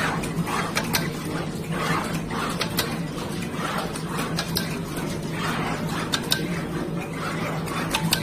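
Desktop SMT pick-and-place machine running: a steady low hum under short whirring bursts about every half second to second as the head moves, with sharp clicks at irregular moments.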